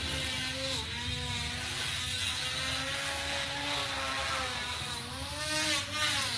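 Small DC motor of a homemade bottle-cap vacuum cleaner running with a steady whine, its pitch wavering up and down as it sucks dust off cloth.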